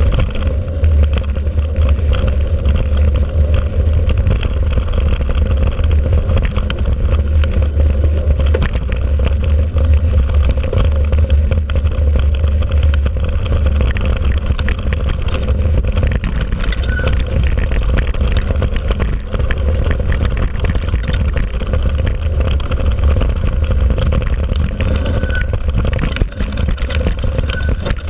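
Wind buffeting and trail vibration on a mountain bike's handlebar-mounted action camera while riding a dirt trail: a loud, steady deep rumble with small knocks and rattles from bumps throughout.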